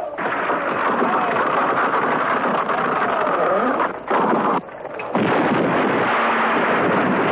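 Rumble and crash of a large marble block and rubble sliding down a quarry slope, a dense, loud roar of stone with a brief break a little after four seconds in.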